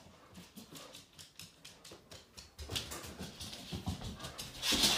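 A dog whimpering outside, with scattered light clicks and taps, and a louder rush of noise near the end.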